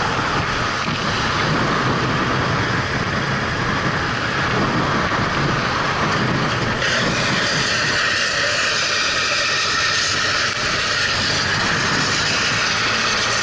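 Motorcycle riding at road speed. A steady rush of wind on the microphone covers the engine's low running note beneath it.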